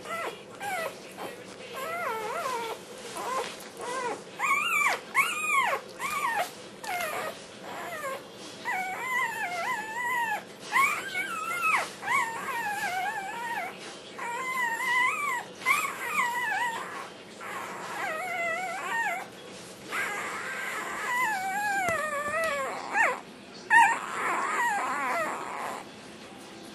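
Australian Shepherd puppy singing while nursing: a long run of short whining, yodelling calls that waver up and down in pitch.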